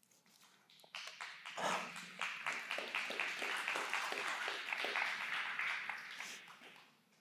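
Congregation applauding: the clapping starts suddenly about a second in, holds steady and dies away near the end.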